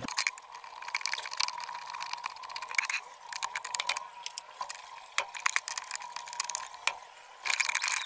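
Screwdriver driving in the washing machine pulsator's centre screw, with irregular metal clicks and rattles over a faint steady high tone, and a louder run of rattling near the end.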